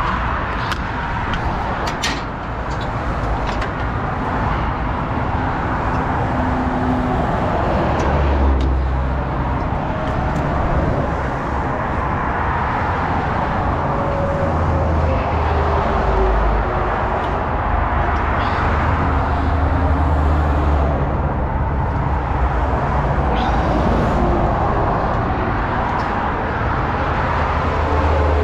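Steady motorway traffic noise from vehicles passing at speed, with heavier vehicles adding a deeper sound through the middle of the stretch, and a few short clicks.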